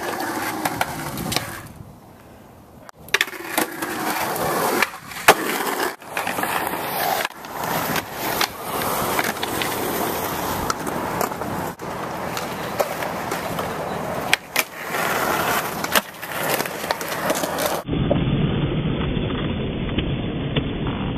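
Skateboard wheels rolling on concrete, broken by many sharp clacks and knocks of the board hitting the ground and obstacles. Near the end the sound turns muffled and low.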